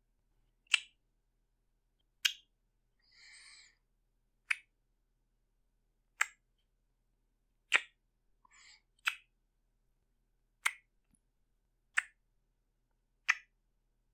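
A man kissing: about nine short lip smacks, one every second and a half or so, with two fainter, longer sounds between them.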